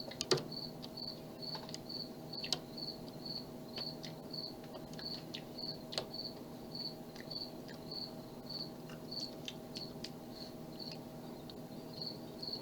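Lock pick and tension bar working the pin stack of a Master Lock padlock: scattered faint clicks and scrapes, the sharpest about a quarter second in. Through it a cricket chirps steadily about three times a second over a faint hum.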